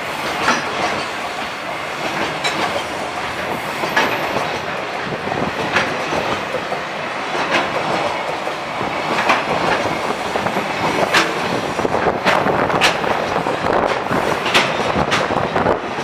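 Freight train rolling past, a steady rumble of wheels on rail with sharp clacks every second or two as the wheels cross rail joints.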